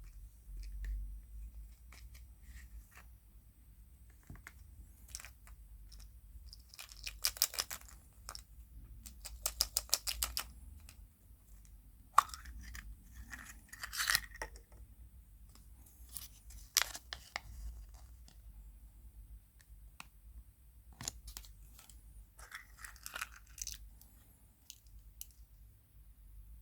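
Surprise eggs being opened by hand: their wrappers tearing and crinkling in short bursts, with small clicks and taps and quick runs of rapid clicking between pauses.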